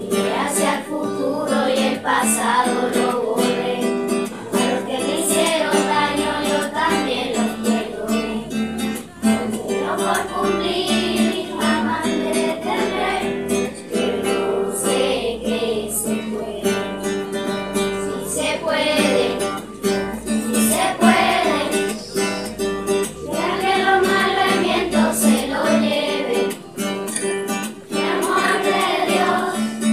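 A children's choir singing, accompanied by a strummed acoustic guitar.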